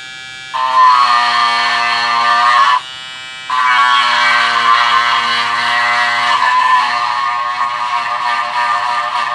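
Mini linear electric sander pen buzzing loudly as its straight attachment sands plastic: about two seconds of sanding, a short break, then about six seconds more, the pitch dipping briefly partway through.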